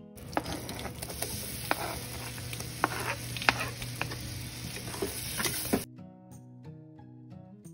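Melted butter sizzling in a stainless steel pot while a metal spatula stirs, scraping and clicking against the pot. About six seconds in it cuts off suddenly to plucked acoustic guitar music.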